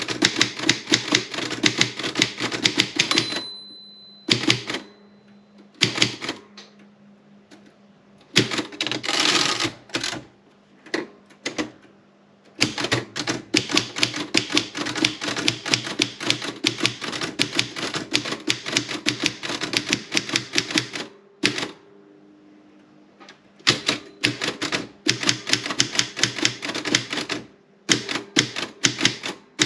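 Erika 30 manual typewriter being typed on in quick runs of key strikes with short pauses between them. A single short bell-like ring comes about three seconds in.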